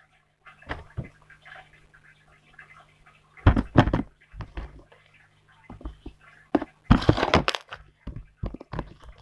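Soft slime being poked, squeezed and slapped by hand on a tabletop: irregular squelches and slaps, the loudest clusters about three and a half seconds and seven seconds in.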